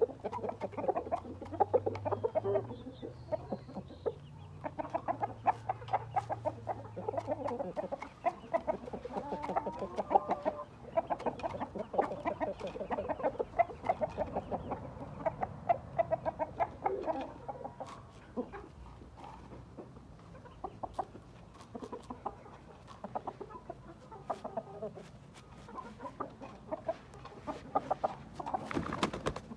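Gamefowl chickens clucking over and over, short calls coming in quick succession, with many sharp little taps among them.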